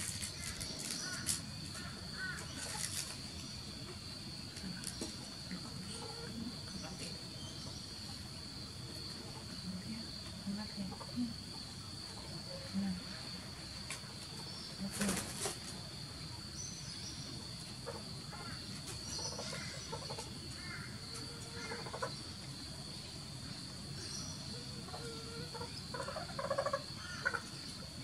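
Steady high-pitched insect chirring, with a few faint short sounds and one sharp click about fifteen seconds in.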